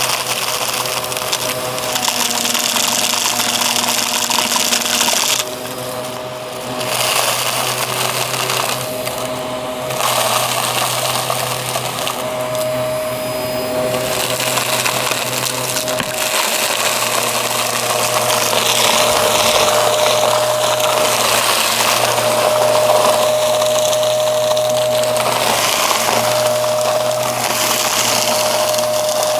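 Aspiron vacuum cleaner running with a steady motor whine, sucking up crunchy debris that crackles through the nozzle. The level dips briefly about six seconds in.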